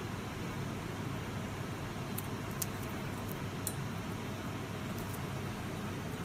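Steady low room noise, with a few faint, sharp metal ticks as the jaws of side-cutting pliers are set against a gold finger ring before the cut.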